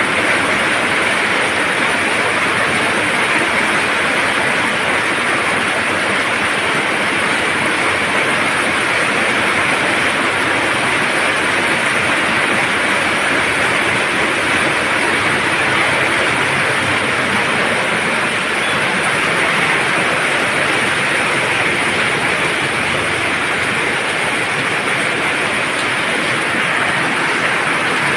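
Steady, loud rainfall, an even hiss of rain with no breaks or single impacts.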